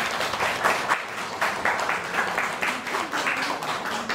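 Audience applauding: many overlapping hand claps in a steady patter.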